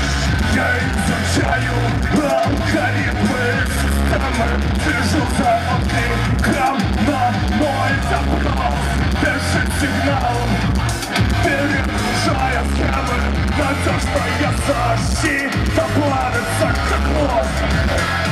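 Rock band playing live at full volume, with electric guitar, keyboards, drums and a steady bass line under the singer's shouted vocals.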